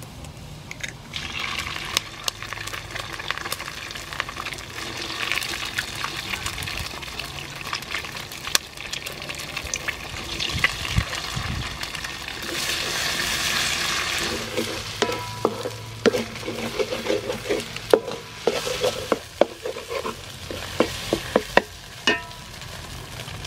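Eggs sizzling as they drop into hot oil and garlic in a metal wok, with sharp clicks scattered through. In the second half a wooden spatula scrapes and knocks against the wok as the eggs are scrambled.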